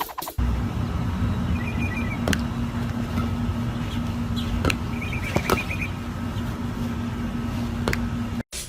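Steady low rumble of a car in motion, with a steady hum, a few sharp clicks, and two short high chirping trills about 1.5 and 5 seconds in. It cuts off suddenly just before the end.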